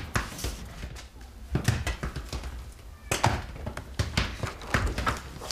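Irregular light knocks, clicks and rustles of small objects being handled and set down on a desk.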